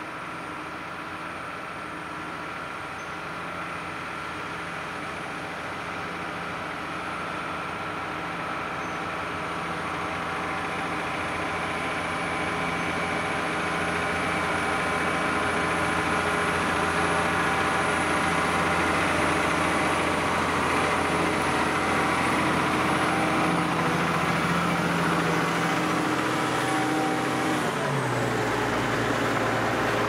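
New Holland T7.245 tractor's six-cylinder diesel running steadily under load while pulling a Lemken reversible plough through the soil, growing louder over the first fifteen seconds or so as it comes closer. The engine note shifts abruptly near the end.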